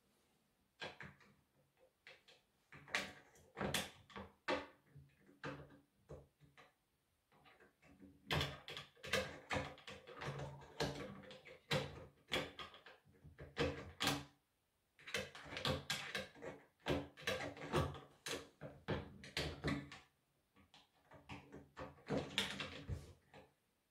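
Handling clatter as a thin wire hook is worked inside a Husqvarna chainsaw's plastic fuel tank through the filler opening: quick clicks, scrapes and knocks of metal wire on plastic, in bursts separated by short pauses.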